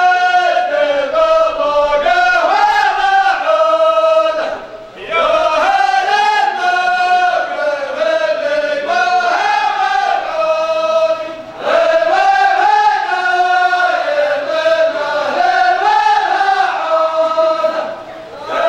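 A group of men chanting a sung verse in unison with no instruments, in long phrases of about six seconds each, three of them, separated by short breaks for breath.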